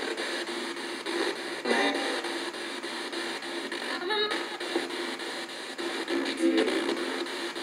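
PSB-7 spirit box sweeping up through the FM band, played through an external speaker: a steady hiss of radio static chopped into short, rapid steps, with brief fragments of broadcast sound a few times.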